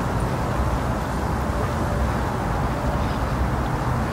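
Steady rain ambience, a dull even rush with a deep rumble underneath and little hiss at the top.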